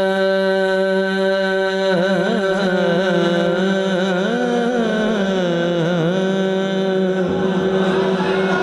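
A man singing the wordless melodic opening of a naat into a microphone: a long held note, then a run of notes gliding up and down from about two seconds in, settling into another held note near the end.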